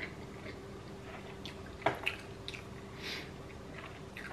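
Close-miked chewing of sushi: soft, wet mouth clicks and small squishes, with one sharper click about two seconds in, over a faint steady hum.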